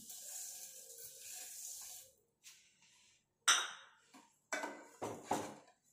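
Granulated sugar poured from a small bowl into a steel pot of milk and vermicelli (shavige payasa), a soft hiss for about two seconds. Then a steel ladle knocks against the pot several times as the mixture is stirred, the first knock the loudest.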